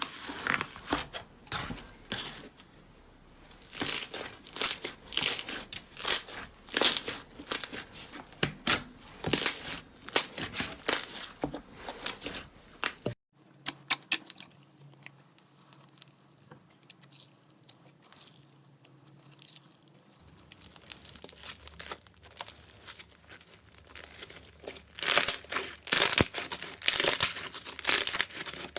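Slime being squeezed, stretched and pressed close to the microphone, with dense sharp crackles and pops. It cuts off abruptly about halfway, goes softer, and turns loud and crackly again near the end.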